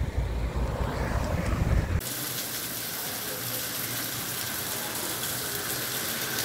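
A low rumble for about two seconds, then a sudden change to heavy rain pouring down: a steady, even hiss of falling rain.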